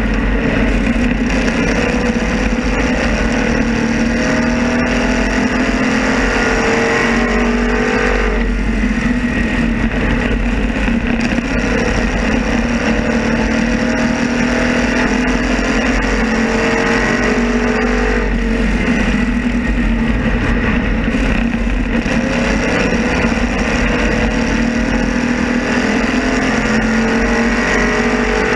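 Race car engine heard on board at racing speed, its pitch climbing steadily down each straight, then dropping sharply as the driver lifts for the turn, about every nine to ten seconds. Wind and road noise rush over the microphone throughout.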